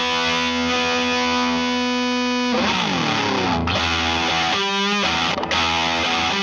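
Electric guitar played through fuzz distortion: a fuzzy chord is held for about two and a half seconds, then slides down in pitch into short riffs with a few brief stops.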